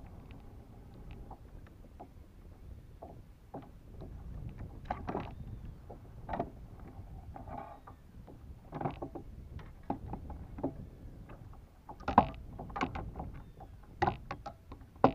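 Scattered knocks, clicks and scrapes from a caught oscar fish being handled aboard a plastic fishing kayak, over a steady low rumble. The sharpest knocks come in the last few seconds.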